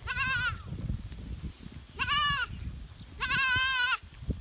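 Goats bleating: three separate high-pitched, wavering bleats, the last one the longest.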